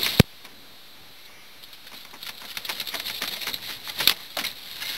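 One sharp click, then a string of light, irregular clicks and taps as hands work a hook and line at a halibut's mouth, with a stronger tap near the end.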